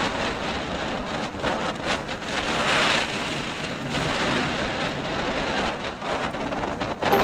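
Wind rushing over the microphone of a motorcycle riding at speed, with uneven gusts and road noise.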